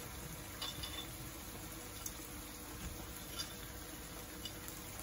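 Seafood paella simmering in a wide pan over a gas burner: a soft, steady bubbling hiss, with a few faint clicks of clam shells being set into the rice.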